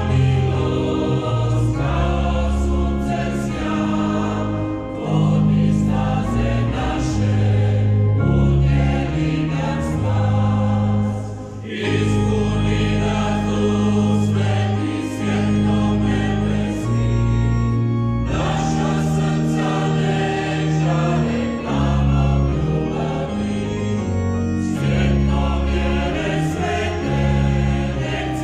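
A choir singing a slow sacred song in long held chords.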